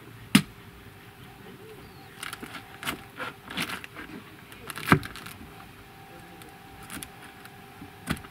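Hatchet chopping into a large artist's conk bracket fungus on a wooden board: two sharp blows about four and a half seconds apart and a lighter one near the end, with crunching and scraping in between as the blade works through.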